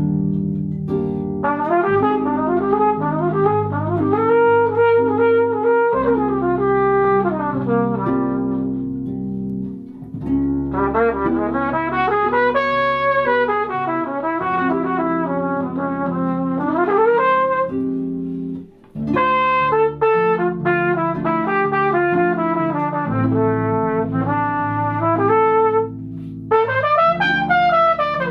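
Flugelhorn playing a melody over harp accompaniment, in phrases with short breaks between them.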